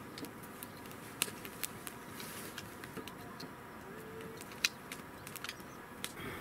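Scattered sharp clicks and light clinks of camp gear being handled, over a steady quiet outdoor background with a faint hum.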